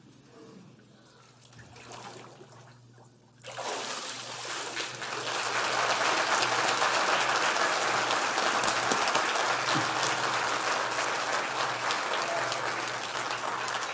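Faint water sounds from the baptismal tank as the candidate is immersed and raised. Then, about three and a half seconds in, a congregation breaks into steady applause that continues to the end.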